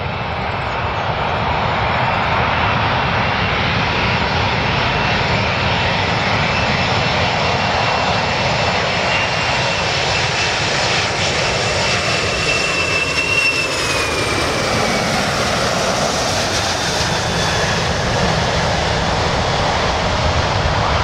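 Boeing 747-400 airliner on landing approach, its four jet engines giving a loud, steady roar. A high whine rides on top and slides down in pitch a little past the middle as the aircraft passes.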